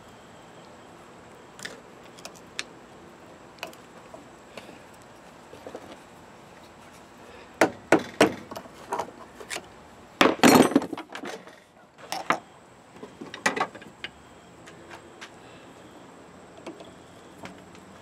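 Metal tools and parts clinking and knocking on a motorcycle front fork leg while the snap ring that holds its oil seal is worked out. The sounds are scattered, with a loud dense cluster about ten seconds in.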